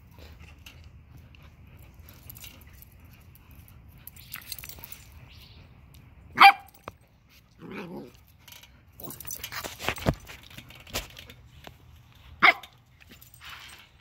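Small dogs at play, a Chihuahua and a puppy: two sharp, loud barks about six seconds apart, with a lower vocal sound and a run of scuffling knocks and clicks between them.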